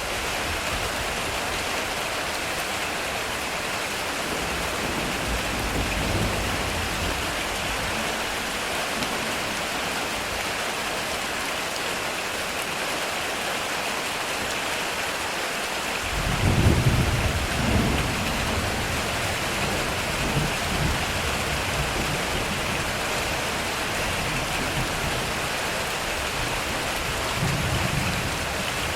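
Heavy rain falling steadily as an even hiss, with a clap of thunder a little past the middle that rolls on for several seconds, and a fainter rumble of thunder near the end.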